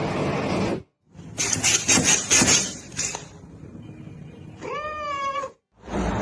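A domestic cat gives one drawn-out, wavering meow lasting about a second, near the end. Before it comes a stretch of scratchy noise with a few sharp clicks.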